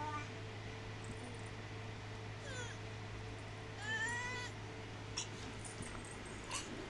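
A baby's high-pitched squeals: a faint one about two and a half seconds in and a louder one, rising then held, about four seconds in, over a steady low hum. A couple of light knocks near the end.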